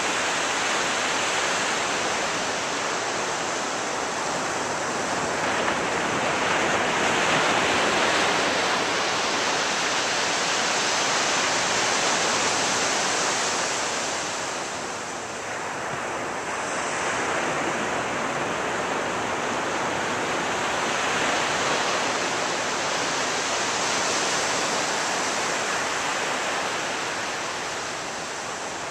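Ocean surf breaking and washing up a beach: a continuous rush of water that swells and eases every several seconds, dipping briefly about halfway through and again near the end.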